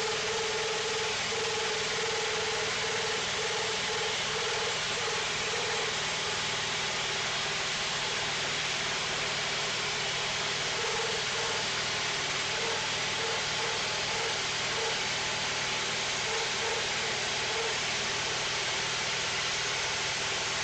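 Wood-Mizer portable band sawmill running steadily, its engine and band blade making a continuous loud noise, with a mid-pitched tone that comes and goes in short pulses for stretches.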